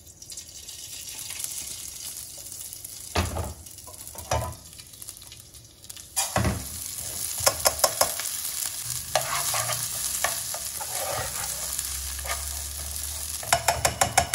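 Raw rice poured into hot oil in a nonstick pot sizzles loudly from about six seconds in, and a spoon stirs and scrapes the grains as they fry, the first stage of Mexican red rice. Before that the oil hisses faintly with a couple of knocks, and the strainer is tapped sharply against the pot a few times just after the pour.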